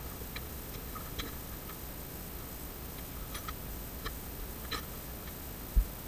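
Scattered small metallic clicks of an Allen wrench working the screws that hold a wooden table foot, with one low thump near the end.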